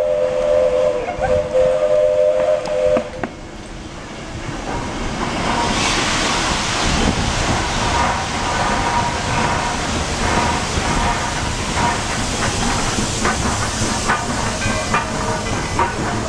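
Walt Disney World Railroad steam locomotive blowing its whistle, a steady two-note chord, for about three seconds. Then the hiss and running noise of the approaching train rise and stay loud, with knocks and rattles from the cars toward the end.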